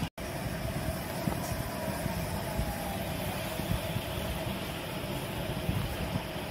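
A steady background hum, like a motor or engine running, with a faint constant tone. The sound drops out completely for a moment just after the start.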